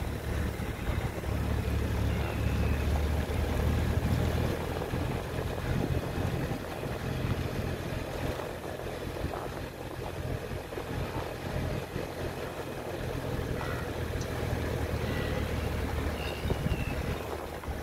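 Safari vehicle driving along a dirt track: a steady low engine and road rumble, with wind buffeting the microphone.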